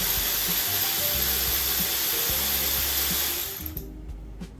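A loud, steady hiss that cuts off about three and a half seconds in, over quiet background music.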